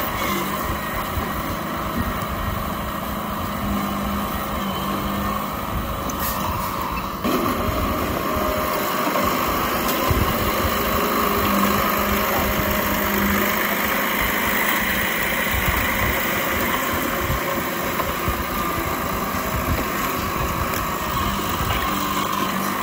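Old Komatsu D31P crawler bulldozer's diesel engine running steadily, with an abrupt shift in the sound about seven seconds in.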